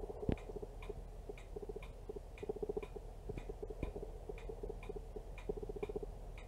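Camera autofocus mechanism hunting: faint, even ticking about twice a second, with short bursts of rapid buzzing clicks every second or so.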